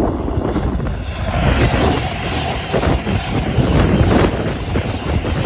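LNER express passenger train passing close at speed: a loud steady rush of wheels on rail and air, building about a second and a half in. Wind buffets the microphone.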